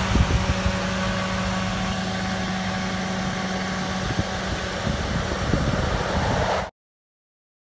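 A car engine idling steadily, with irregular low rumbling over it; the sound cuts off abruptly near the end.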